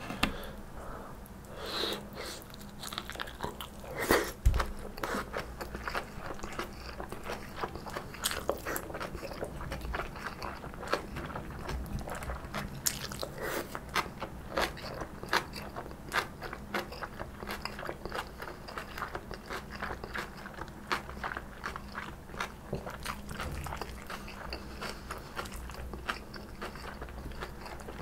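A person biting and chewing stir-fried kimchi with soft tofu: a steady run of short, crisp crunches from the crunchy kimchi, with the loudest bite about four seconds in.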